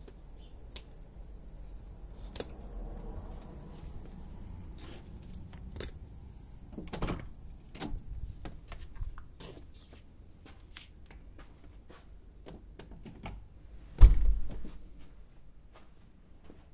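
Footsteps and clicks of someone walking, over a steady high chirring of insects that fades out about two-thirds of the way through. A few knocks come around seven to nine seconds in, then a single loud door thump about 14 seconds in.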